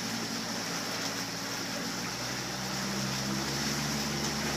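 Small outboard motor running steadily as it pushes a kayak through the water, with water and wind hiss around it; its note shifts about two seconds in.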